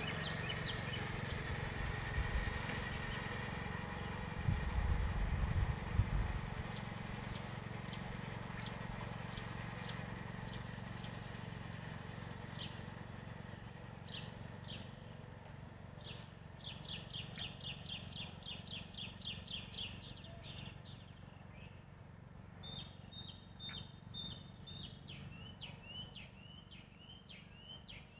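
Riding lawn mower engine running with a steady low hum, slowly fading as it moves away, with a brief low rumble about four to six seconds in. From about twelve seconds on a bird chirps: a quick run of about four chirps a second, then a series of short falling chirps near the end.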